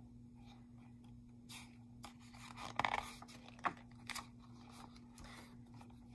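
A page of a large picture book being turned by hand: a paper rustle about three seconds in, followed by a sharp click and a couple of lighter rustles as the page is smoothed down. A faint steady hum runs underneath.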